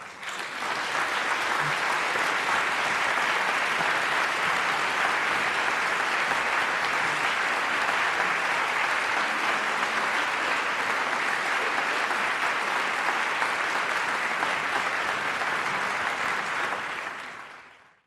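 A concert-hall audience applauding. The applause breaks out all at once, holds steady and dense, and tails away near the end.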